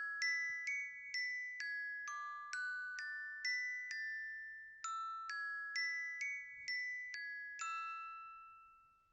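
Countdown timer alarm: a tune of chiming, bell-like notes, about two a second, with a brief pause midway. The last note rings on and fades away.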